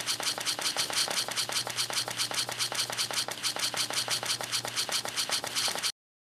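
Rapid, even clicking, about eight clicks a second, over a low steady hum; it cuts off suddenly near the end.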